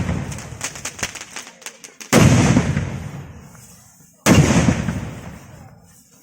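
Aerial fireworks: two loud bangs, a little after two seconds and four seconds in, each fading away over a second or two, with rapid crackling pops in between.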